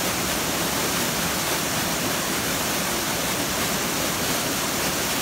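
Small mountain waterfall pouring over rocks and splashing into a pool, a steady rushing hiss of falling water.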